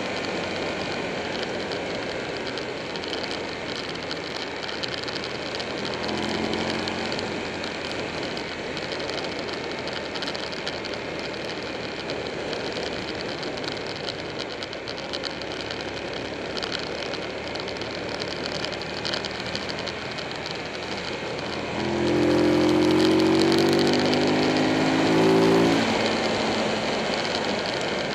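Buell 1125R's V-twin engine running under way with wind rushing over the microphone. About three-quarters of the way through, the engine note gets louder and climbs slightly in pitch for a few seconds as the bike pulls harder, then eases back.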